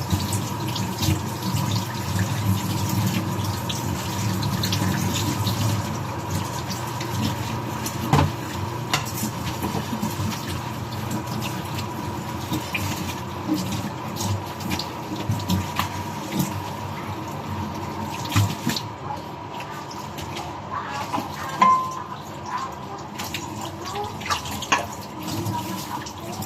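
Water running from a tap and splashing into a basin, with scattered clinks and knocks throughout.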